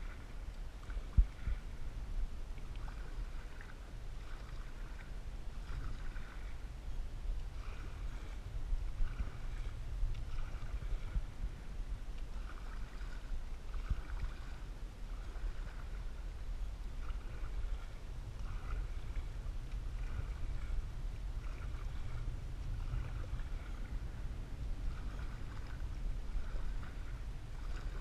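Canoe paddle strokes through calm lake water, soft swishes coming about once a second over a steady low rumble, with one sharp knock about a second in.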